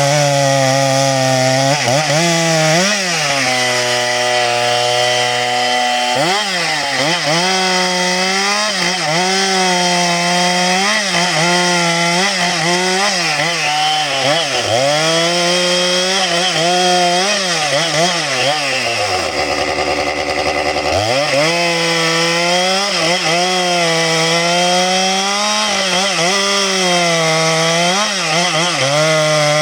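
Stihl MS 462 two-stroke chainsaw cutting through a log at full throttle, its engine pitch dipping under load in the wood and picking back up again and again. About two-thirds of the way through it bogs down hard to a low, slow note, close to stalling, then revs back up and carries on cutting.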